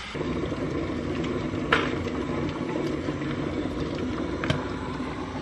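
Glass electric kettle coming to the boil, a steady low rumble of heating water, with a couple of short light clicks on top.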